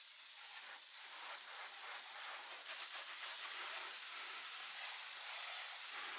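Garden hose spray nozzle hissing as its water jet sprays onto a plastic ride-on toy, rinsing off soap foam. The hiss gets a little louder about a second in.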